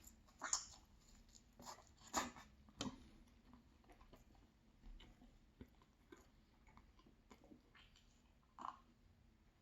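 Close-miked chewing of an almond croissant: soft, irregular mouth sounds and small clicks, a few sharper ones in the first three seconds, over near silence.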